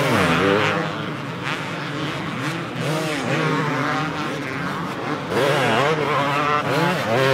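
Several two-stroke motocross bikes racing, their engines revving up and dropping off in quick, overlapping swings of pitch as the riders work the throttle over the jumps. It grows louder about five seconds in.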